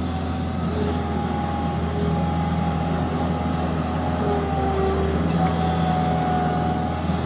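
A farm machine's engine running steadily at a constant speed, with a low hum and a few held higher tones, as it scrapes old hay out of a goat pen.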